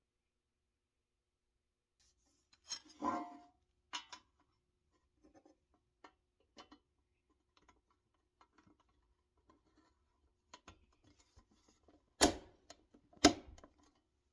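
Hand-handling noises as a clear plastic windshield and a white cab-top frame are fitted onto a steel toy pickup cab: after a couple of silent seconds, scattered light taps and rubs, then two sharp clicks about a second apart near the end.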